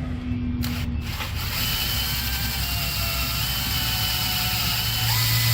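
Electric drill with a 10.5 mm bit boring into a steel frame rivet, starting about a second in and running steadily under load with a whine that steps up in pitch twice.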